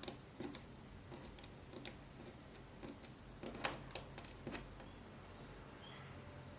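Small lens parts being handled and fitted together: scattered light clicks and taps of metal and plastic pieces, with a couple of faint short squeaks near the end.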